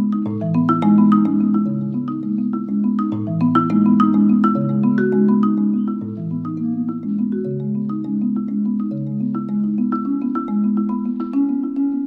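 Background music: a melody of short struck notes over low held notes that change about every three seconds.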